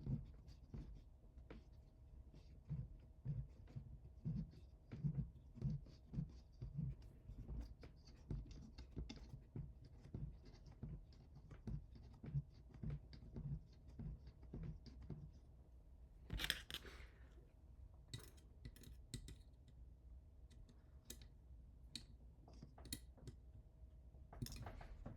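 Faint clicks, taps and light knocks of printer parts and hand tools being handled during assembly, with two brief scraping rustles, one about 16 seconds in and one near the end.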